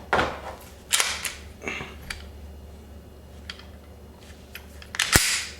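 Glock 27 pistol being handled in a safety check: its slide and action worked by hand, giving a series of sharp metallic clacks and clicks, with fainter ticks in between and the loudest, sharpest snap near the end.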